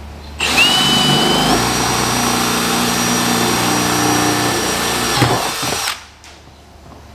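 Milwaukee M18 cordless drill running as it bores a half-inch hole through a plastic gas can, starting about half a second in. Its whine steps up in pitch about a second later, holds steady, and stops about a second before the end.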